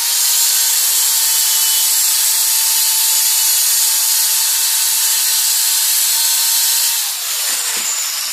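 Handheld electric marble cutter cutting through a ceramic wall tile: a loud grinding hiss over a steady motor whine. About seven seconds in, the whine falls in pitch as the motor winds down.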